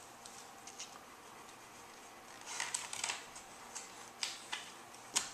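Pages of a hardcover picture book being handled and turned: faint paper rustles and a few soft taps, mostly in the second half.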